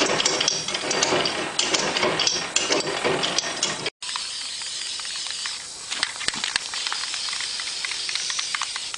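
Homemade rototiller tine rotor spinning on its shaft, with a dense metallic clatter and rattle. About four seconds in this cuts off suddenly, and a quieter steady hiss with a few faint ticks takes over.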